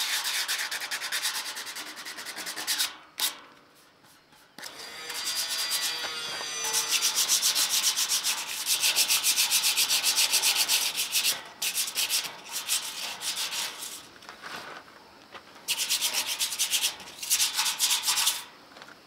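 Sandpaper rubbed by hand over a steel gate's square tubing in fast back-and-forth strokes, scuffing off rust spots ahead of painting. The scraping comes in several bursts with short pauses between them.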